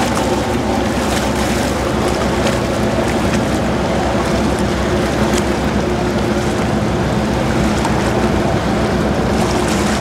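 Large sportfishing boat's inboard engines running steadily at low speed, a constant drone mixed with the hiss of water and wash along the hull.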